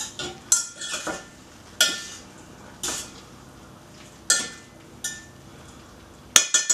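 A spoon stirring a stew in a stainless steel pot, clinking and scraping against the pot about seven times at uneven intervals, with a quick run of three clinks near the end.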